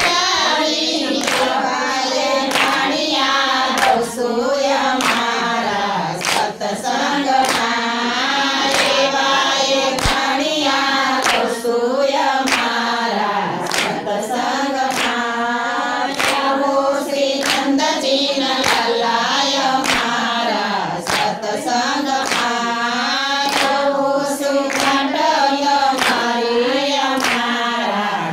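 A group of women singing a Gujarati devotional bhajan to Krishna in unison, clapping their hands to keep a steady beat, about one and a half claps a second.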